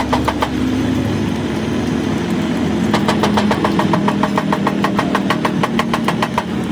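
A steady machine drone with rapid, evenly spaced ticking at about five a second: the ticking stops shortly after the start, then returns about three seconds in and runs until near the end.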